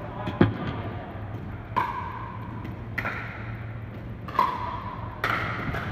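Pickleball rally: paddles striking a hard plastic ball with sharp pops, about five or six hits roughly a second apart, the first the loudest, each ringing briefly in the large hall.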